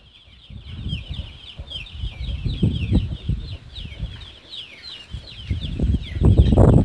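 Birds chirping in a rapid stream of short falling chirps, with irregular low rustling and knocks that grow louder near the end.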